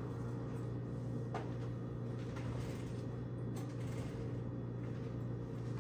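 Steady low background hum with a few faint, isolated light clicks.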